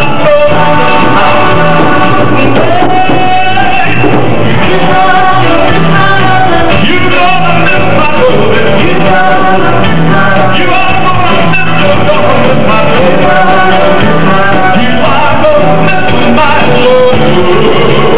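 A male singer singing into a handheld microphone, backed by a live band, loud and even in level.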